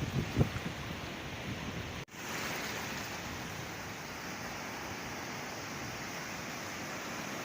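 Sea waves and surf. In the first two seconds it is uneven, with low thumps of water. After a brief cut-out about two seconds in, it becomes a steady, even wash of surf.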